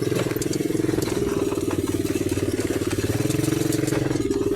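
ATV engine running as the quad is ridden, a steady pulsing engine note whose pitch shifts slightly up and down a few times.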